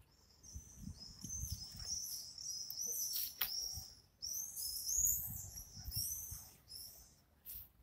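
Small songbirds chirping in short, repeated high-pitched phrases, over a faint low rumble.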